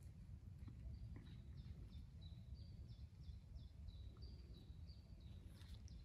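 Faint song of a small songbird: a string of short, high chirps about three a second, alternating slightly in pitch. It starts about a second in and stops near the end, over a low rumble of background noise.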